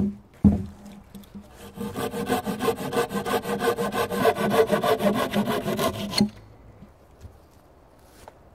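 Folding pruning saw cutting through a dead-wood pole in quick, even strokes, stopping abruptly about six seconds in. Two knocks come just before the sawing starts.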